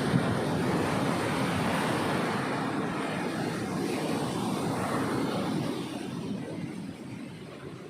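Ocean waves breaking and washing up a beach as a loud, even rush, easing off over the last couple of seconds.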